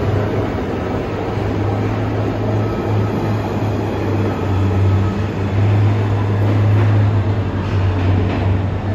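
New York City Subway train in the station, running with a steady low hum over broad rail noise.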